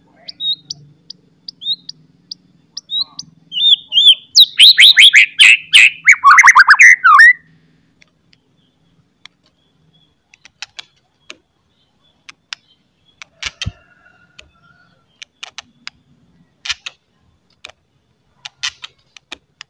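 White-rumped shama (murai batu) giving a few short high chip notes, then a loud, fast, harsh chattering series that slides down in pitch for about three seconds: the 'cetrekan' rattle of a bird in full song. Scattered sharp ticks follow.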